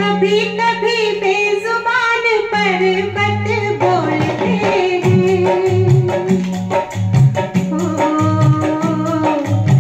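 Hindi film song played from a vinyl record: a woman sings a flowing melody over tabla and a rhythmic bass line, with the low bass and drums growing stronger about three seconds in.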